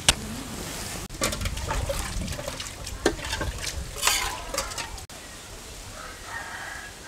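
Metal spatula scraping and knocking against a wide iron pan as fried chicken is scooped out, a run of scrapes and clicks lasting about four seconds after a sharp click at the start. Near the end it cuts off abruptly, leaving a quieter background.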